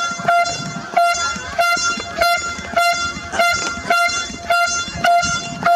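Canada geese honking in a rapid, steady series, about three short nasal honks a second.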